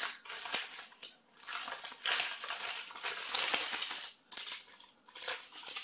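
Small plastic topping packet of sesame seeds and dried seaweed flakes crinkling and rustling as it is handled and shaken, in several bursts with short pauses between them.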